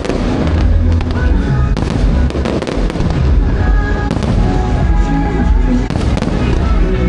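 Aerial fireworks bursting in rapid, irregular succession, with many sharp bangs, over music with sustained notes and a heavy bass.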